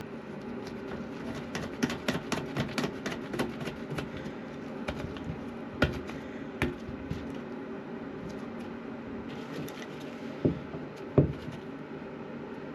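Hands fitting a new toilet water-supply line: a quick run of small clicks for the first few seconds, then a few separate knocks of the fittings and tools being handled.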